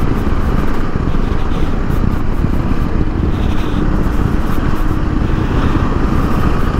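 Motorcycle on the move at road speed: a steady, dense rush of engine, tyre and wind noise with no letup.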